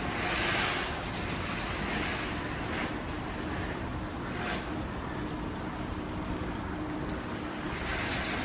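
City street traffic ambience: a steady low rumble of engines, with passing vehicles swishing by several times.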